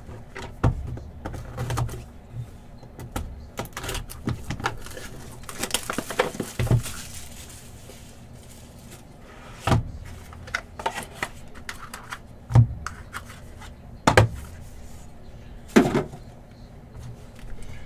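Hands opening a cardboard trading-card box and handling cards in hard plastic holders: scattered clicks, knocks and rustling, with a longer rustle about six seconds in and a few sharper knocks in the second half.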